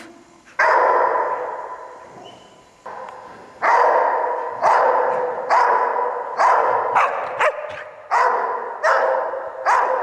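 Australian Shepherds barking in play: one bark with a long ringing tail about half a second in, then from a few seconds in a run of barks about one a second, each ringing on as it fades.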